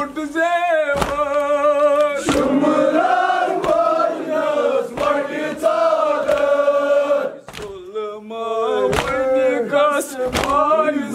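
Men chanting a Kashmiri Muharram noha (lament) together, with sharp claps of chest-beating (matam) keeping time about every second and a half. The chanting breaks off briefly about two thirds of the way through, then resumes.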